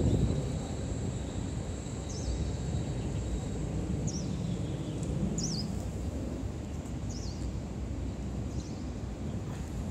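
Outdoor ambience: a steady low rumble of distant traffic, with short high chirps from a bird about every one to two seconds.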